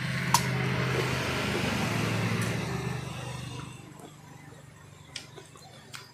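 A motor vehicle's engine running steadily, then fading away about three and a half seconds in. A sharp click comes near the start and a couple of small clicks near the end.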